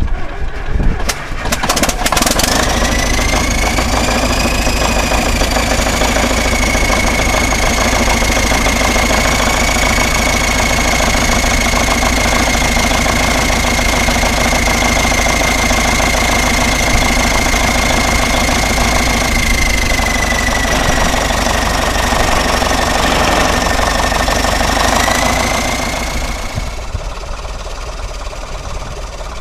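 Caterpillar D7 bulldozer's diesel engine catching and running, with the turbocharger's high whistle rising as it spools up about two seconds in. The whistle then holds steady over the engine's low rumble and fades near the end as the engine settles down.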